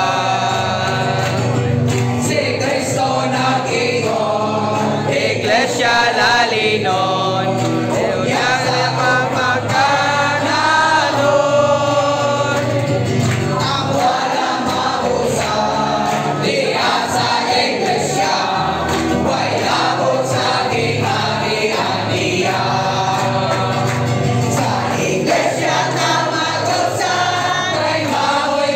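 A congregation of men, women and children singing a hymn together, with leaders singing into microphones, steadily and without break.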